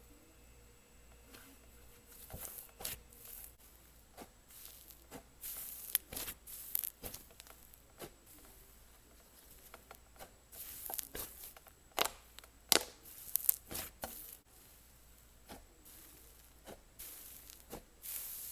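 Cloud cream slime being stretched and squeezed by hand, giving off its crumbly sizzles: irregular soft crackles and crisp little pops, busiest in the middle of the stretch.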